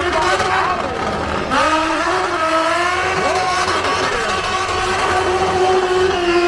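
Drift car engine held at high revs, its pitch wavering up and down as the throttle is worked, with a second engine at a different pitch gliding across behind it.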